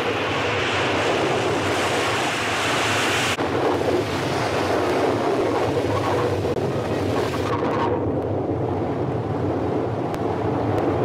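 Loud, steady rush of churning sea water surging and pouring off a ship's hull as it breaks the surface. The rush changes abruptly about three seconds in and its hiss softens about eight seconds in.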